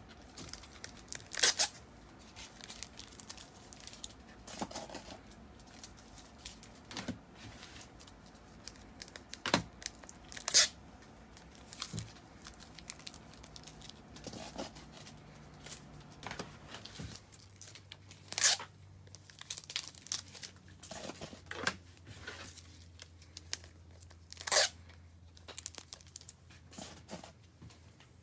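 Intermittent crinkling and tearing noises, with about five louder sharp crackles spread through, as of paper or plastic being handled. A faint low hum comes in about two-thirds of the way through.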